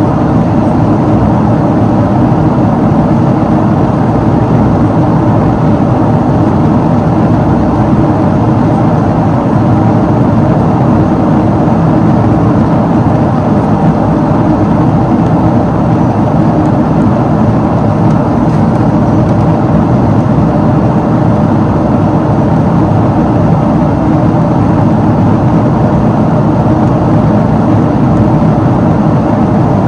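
Cabin noise of a Boeing 777-300ER in climb: its General Electric GE90-115B turbofan engines and the airflow give a loud, steady drone with a few held hum tones and no change in pitch or level.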